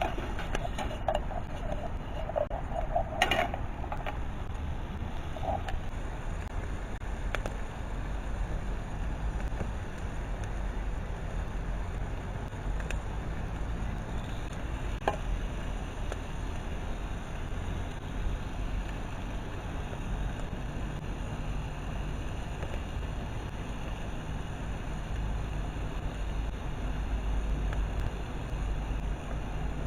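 Steady outdoor background noise with a low rumble, like wind on the microphone, and a few faint scattered clicks.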